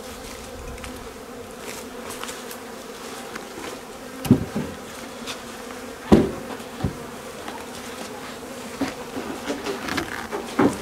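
Honeybees buzzing around the hives in a steady hum, with a few sharp knocks from the hive boxes and covers being handled, the loudest about four and six seconds in.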